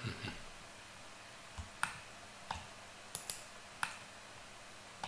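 Scattered clicks of a computer mouse and keyboard, about seven in all and spread out, with a quick double click a little past the middle, over faint room tone.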